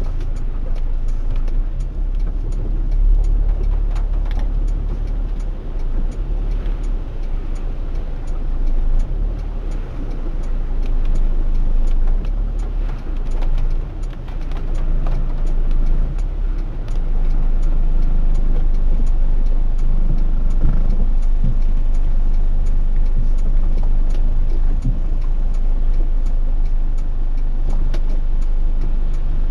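Low, steady rumble inside the cabin of a Honda Odyssey RA6 minivan driving slowly through flood water, with many scattered light ticks. It gets a little louder about halfway through.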